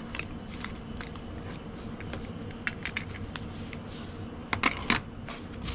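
Hands handling and pushing aside a sheet of foam packing wrap: soft rustling with scattered crinkles and clicks, and a cluster of louder clicks about four and a half seconds in.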